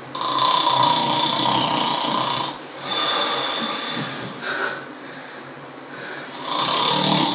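A man snoring loudly in long, drawn-out snores with short pauses between them, the last starting a little over six seconds in.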